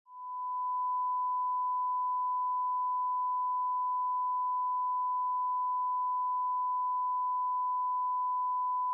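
A single long electronic test-tone beep: one pure, steady pitch that swells in over the first second and then holds unchanged.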